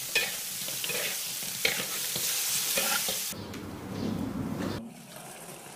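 Soft-shell turtle pieces sizzling as they braise in a wok. About three seconds in, the sizzle gives way to a softer, lower bubbling, which grows quieter near the end.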